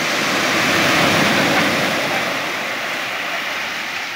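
A wave breaking along a gravel beach and washing up over the stones: a broad rush of surf that swells about a second in and then slowly fades as the water spreads out.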